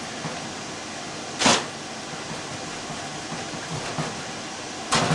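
Two brief knocks, one about a second and a half in and one near the end, over a steady background hiss.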